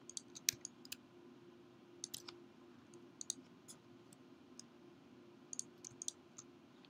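Scattered computer mouse and keyboard clicks, about a dozen, irregularly spaced and faint, over a low steady hum.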